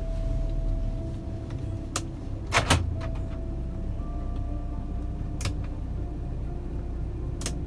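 Steady low engine and tyre rumble heard from inside the cabin of a 2010 Daihatsu Xenia Xi automatic as it pulls away on a test drive. A few sharp clicks sound over it, the loudest a quick pair about two and a half seconds in.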